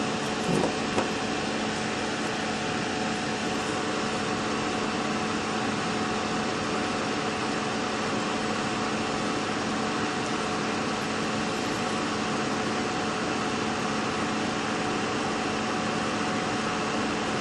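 Steady mechanical hum and whir, even throughout and carrying a few steady low tones. There is a brief light tap or two about half a second to a second in.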